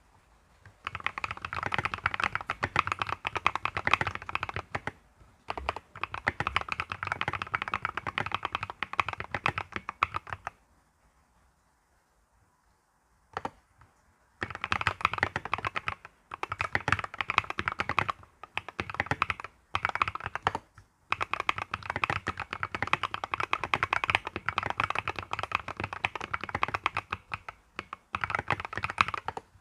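Mstone mechanical keyboard being typed on quickly in long runs of keystrokes. A pause of a few seconds about halfway through breaks the typing.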